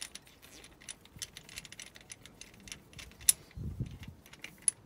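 Small metallic clicks and clinks of a spark plug socket wrench being turned to unscrew a spark plug from a Datsun straight-six 2.4-litre cylinder head, with a sharper click a little over three seconds in, followed by a dull knock.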